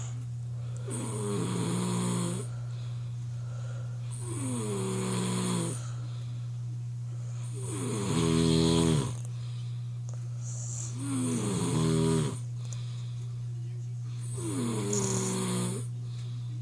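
A person snoring hard: five loud snores about every three and a half seconds, each one falling in pitch as it goes. A steady low hum runs underneath.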